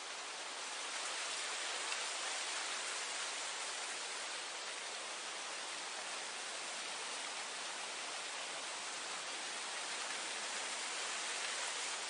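Wind blowing through grass: a steady, even hiss that swells slightly about a second in.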